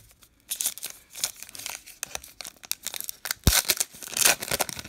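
A sealed baseball card pack's crimped wrapper crinkling in the hands and being torn open. The loudest ripping comes about three seconds in, with a sharp snap, and again just after four seconds.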